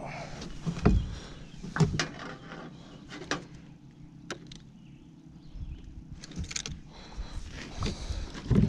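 Scattered knocks and thumps, about seven over several seconds, from someone shifting about in a small boat, over a low rumble.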